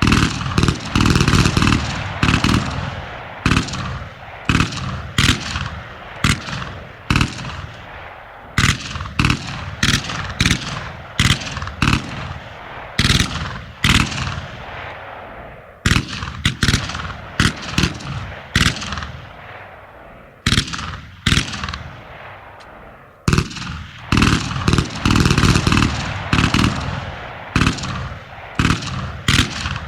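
Machine gun firing in short bursts and single shots, each followed by a rolling echo that dies away.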